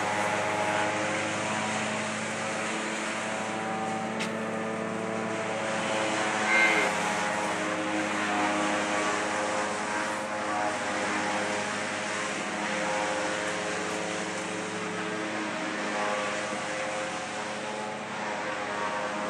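A steady mechanical drone, an engine or motor running at an even pitch throughout, with one brief, louder, higher-pitched sound about six and a half seconds in.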